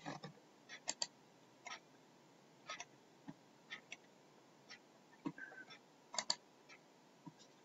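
Computer mouse buttons clicking, a dozen or so short sharp clicks, some as quick double clicks, with a brief faint squeak about five seconds in.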